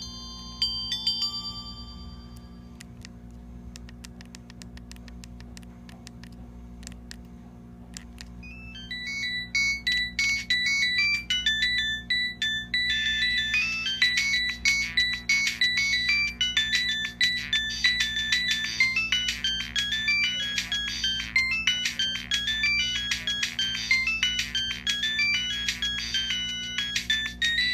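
A Siemens A70 mobile phone plays one of its built-in ringtones through its small speaker. It is a fast electronic melody of short high notes that starts about a third of the way in and keeps going. Before it come a few short electronic beeps, and a faint low hum lies underneath throughout.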